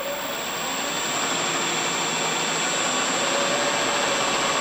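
Wood lathe spinning a log blank between centers, with a spindle roughing gouge cutting it down to round: a steady rushing noise with a constant high whine, growing slowly louder as the lathe speed is turned up.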